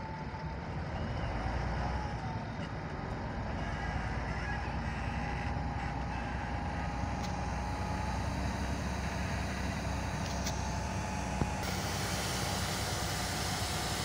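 Caterpillar motor grader's diesel engine running steadily as the grader works loose dirt, with a thin wavering whine above the engine noise.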